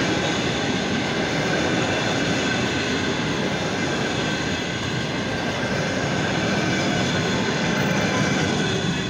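Passenger train coaches rolling past on the adjacent track: a steady noise of steel wheels running on the rails.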